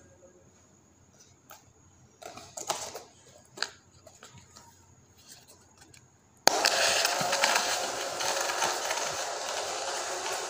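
A few light knocks from handling a cardboard toy train, then about two-thirds of the way in its two small DC gear motors are switched on and run with a sudden, loud, steady rough whirr as the train rolls along a paper-roll track.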